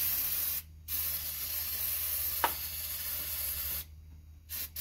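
Aerosol can spraying into a car engine's air intake in hissing bursts: one that cuts off just after the start, a long spray of about three seconds, and a short puff near the end.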